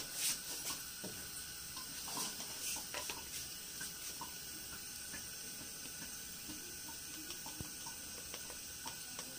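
Faint kitchen clatter: a few light clicks and clinks of utensils in the first three seconds, then scattered small ticks over a steady low hiss.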